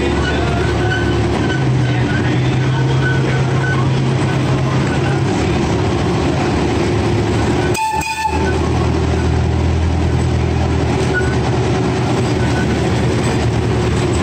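Chance Rides miniature park train running along its track, heard from on board: a steady low engine hum over running noise. The engine note steps up about a second and a half in and drops back a few seconds later.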